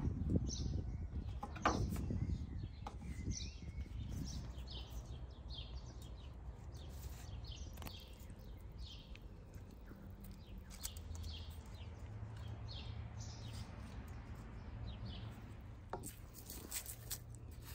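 Small birds chirping and singing throughout, over a low steady outdoor rumble. A couple of sharp knife chops on a wooden cutting board sound in the first two seconds.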